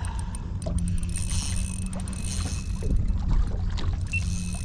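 Steady low rumble with a faint hum on board a small fishing boat on the water, with a few light clicks over it.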